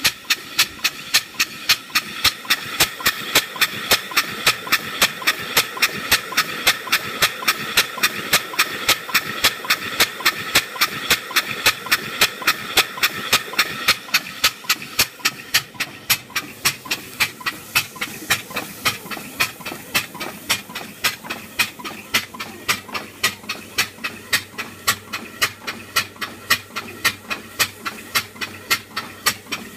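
Steam road locomotive under test steaming: steady steam hiss, with a sharp, even beat from the engine ticking over about three times a second. The hiss eases about halfway through while the beat carries on.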